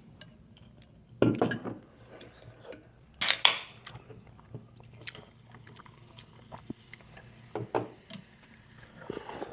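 Eating noodle soup: spoons and chopsticks clinking against bowls, with chewing, as a few short separate sounds, the loudest about one and three seconds in.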